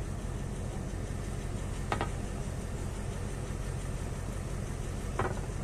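Diesel train engine idling at a standstill: a steady low hum. Two brief, short higher sounds come about two seconds in and near the end.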